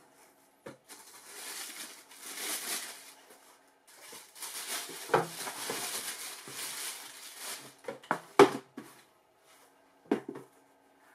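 Cardboard shoebox being opened and the tissue paper inside rustled and crinkled as a canvas skate shoe is unwrapped, in two long stretches. Several knocks of the box lid and shoe being handled and set down, the loudest about three quarters of the way through.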